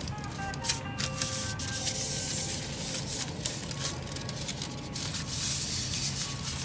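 Aluminium foil crinkling and crackling as hands crumple and fold it, loudest from about two seconds in until near the end. Faint background music with held notes runs underneath.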